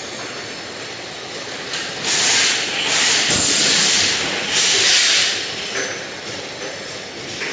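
Jar filling and capping line running: the steady noise of the conveyor and cap feeder, with loud hissing in two long stretches from about two seconds in until nearly six seconds.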